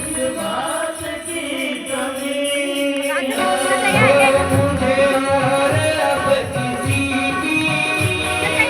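Folk-style song: a voice singing over instrumental accompaniment, with rhythmic hand percussion joining about three and a half seconds in.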